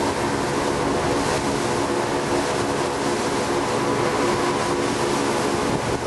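Boat engine running steadily under way, with wind and water rushing past the hull.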